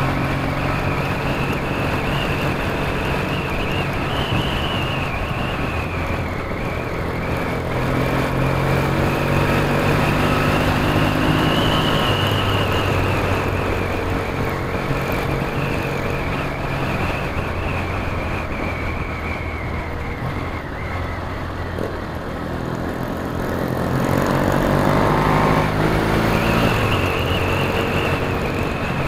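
Motorcycle engine running at road speed, heard from a helmet camera with wind rushing over it. For a few seconds late on, the engine note climbs and grows louder as the bike accelerates, then drops back.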